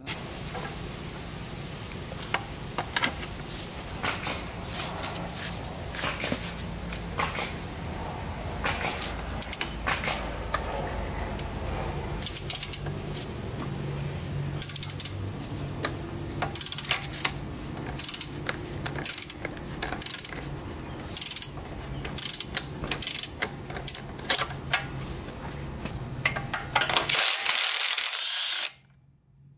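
Hand socket ratchet clicking in irregular strokes as it turns a bolt in a quad's frame. Near the end a cordless power tool runs briefly on the same bolt.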